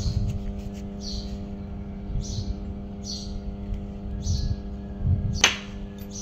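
A steady electrical hum, with soft hissy swishes about once a second, and one sharp metal clink about five and a half seconds in as steel flat-bar pieces are handled.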